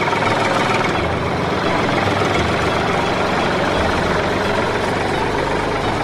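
Homemade remote-control toy tractor running as it drives slowly over concrete, with a steady engine-like chugging.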